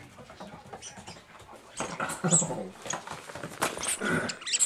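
A puppy playing on a hard floor: claws clicking and scrabbling, with faint high squeaks and two short voice-like sounds about two and four seconds in.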